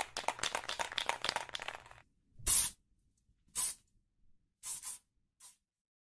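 Dense crackling clicks for about two seconds, then four short bursts of hissing, about a second apart; the first is the loudest.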